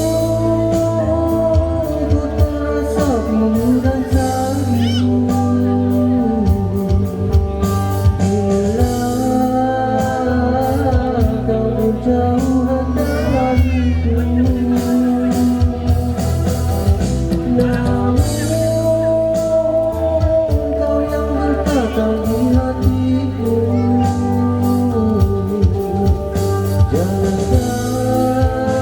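Music: a band playing a slow Malay pop ballad, a held, sliding lead melody over guitar and drums.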